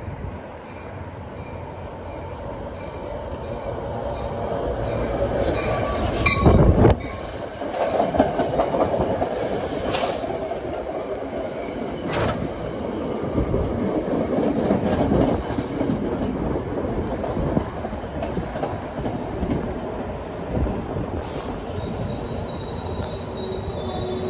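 Diesel-hauled NJ Transit commuter train of Comet coaches pulling into the station, the rumble of the cars growing loud as the head of the train passes about six seconds in, then rolling past with a few clanks. The wheels and brakes squeal with a thin high tone through the second half as the train slows toward a stop.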